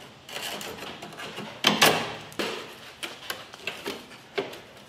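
Thin license-plate metal scraping and clicking against the rusted sheet metal of a Chevy C10's cab corner as it is worked into a rust slot, a series of irregular sharp clicks and knocks.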